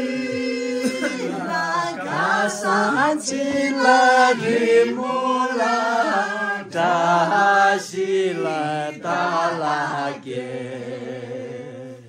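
A group of men and women singing a song together without accompaniment, voices in unison with long held, wavering notes.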